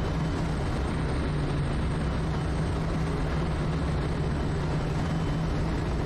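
Steady drone of a Quest Kodiak's turboprop engine and propeller on final approach, heard inside the cockpit, with a constant low hum under it.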